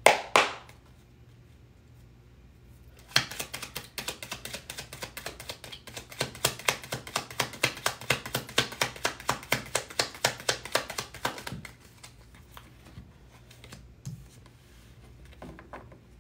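Tarot cards being shuffled hand over hand: a quick, even run of card slaps and flicks, about five a second, starting about three seconds in and stopping after about eleven seconds, with a few soft clicks of cards being handled afterwards. A single short sharp knock comes right at the start.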